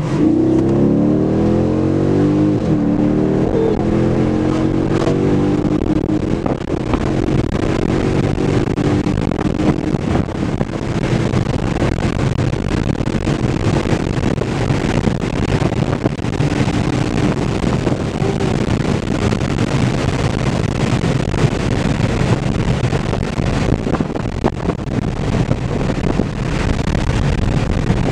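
Dodge Charger's HEMI V8 accelerating hard, its pitch climbing through the gears over the first few seconds. It then settles into a steady engine drone with road and wind noise at speed.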